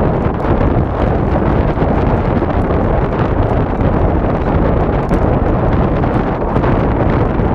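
Wind buffeting an action camera's built-in microphone: a loud, steady rumbling rush with constant flutter.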